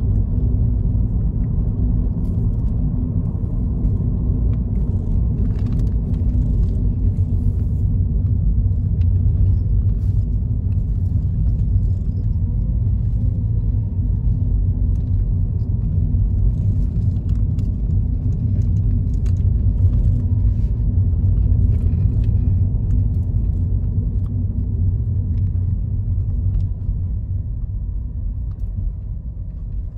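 Steady low rumble of a moving car's road and engine noise, heard from inside the cabin, getting a little quieter near the end.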